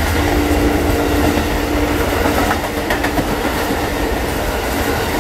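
Amtrak passenger train rolling past close by: a steady, loud rumble of the moving cars, with faint clicking of wheels over the rail joints and a steady mid-pitched tone through the first three seconds.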